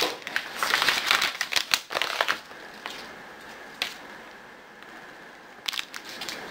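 Plastic snack packaging crinkling and rustling as a bag of individually wrapped wafer bars is handled, dense for the first two seconds or so. It then goes quieter, with a few short sharp crackles as one bar's wrapper is pulled at to open it.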